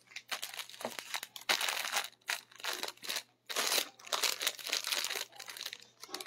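A clear plastic packet holding folded fabric crinkles as it is handled, in a run of irregular rustles that come and go.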